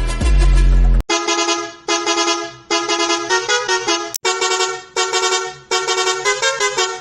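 Musical bus horn sounding a tune as a run of separate horn blasts, each a second long or shorter, with a brief break about four seconds in. The first second is the end of a different, bass-heavy music clip.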